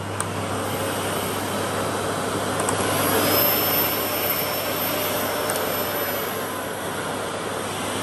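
Miele S6220 Cat & Dog cylinder vacuum cleaner running, its motor building up to a louder pitch over the first three seconds or so, with a faint thin high whine, then holding steady. The motor runs smoothly and healthily.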